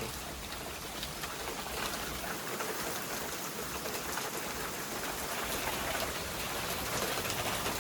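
Heavy downpour of rain, a steady hiss of falling drops that grows a little louder toward the end.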